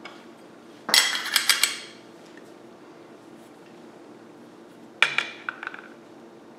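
Stainless-steel espresso portafilter clattering in two short bursts of metal clinks and knocks: about a second in as it is handled, and again about five seconds in as it is set down on a digital scale.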